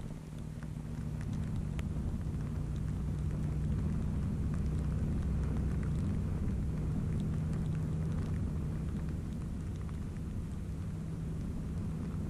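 Yamaha NVX (Aerox) scooter's single-cylinder engine running steadily at cruising speed, with a low rumble and the hiss of rain and the wet road underneath. It grows louder over the first second or two, then holds steady.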